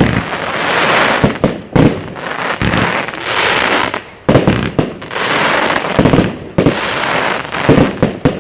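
Xplode XP5301 Double Deck Red fireworks cake firing shot after shot. Each shot is a sharp launch thump followed by about a second of dense crackling as the shell bursts into a crackling cloud, repeating every second or so.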